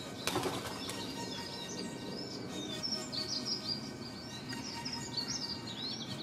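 Small garden birds chirping and twittering with many short, high calls, and a brief flutter or rustle about a third of a second in.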